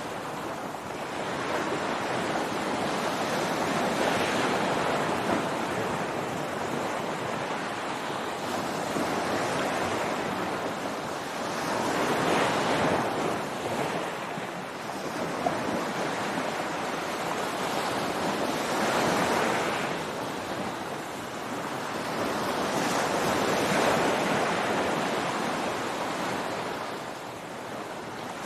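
Ocean surf breaking on a beach, a steady wash of water that swells and eases every several seconds as waves come in and draw back.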